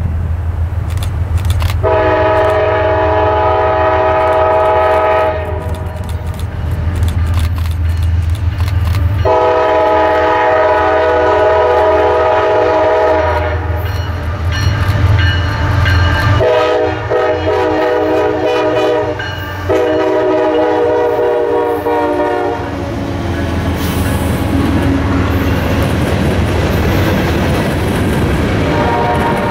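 Air horn of a CSX GE ET44AH diesel locomotive sounding a series of blasts: two long ones, then two shorter ones back to back, and another starting near the end. The locomotives' engines rumble low underneath, with wheels clacking over the rails.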